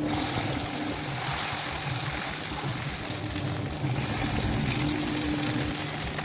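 Akara bean cakes deep-frying in hot groundnut oil, a steady sizzle.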